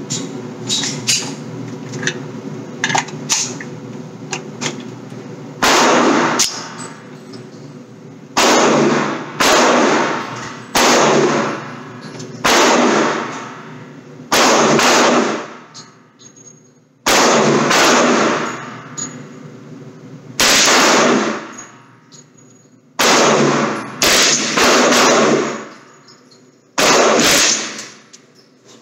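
A slow string of about fifteen single gunshots, one every one to two seconds from about six seconds in, each followed by a ringing tail of about a second. Before them come fainter sharp cracks over a steady low hum.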